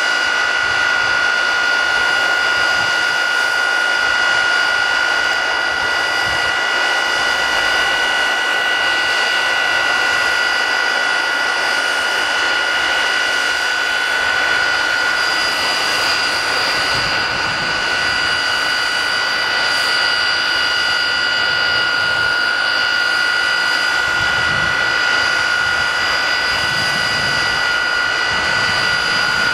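Airplane jet engine mounted on a railway maintenance truck running steadily at full power, blasting its hot exhaust onto a snowplow to melt the snow off it. It makes a loud, unchanging roar with a steady high-pitched whine riding over it.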